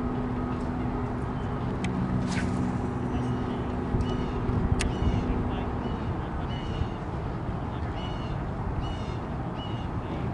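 A bird calling over and over, short calls about once a second, over a steady low rumble of open-air noise. A low hum runs underneath and stops about six seconds in.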